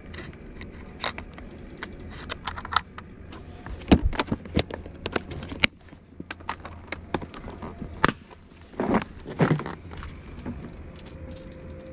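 Lead sinkers clicking and clattering against the plastic compartments of a tackle box as a hand sorts through it: a run of quick, sharp clicks, with one louder click about two-thirds of the way through.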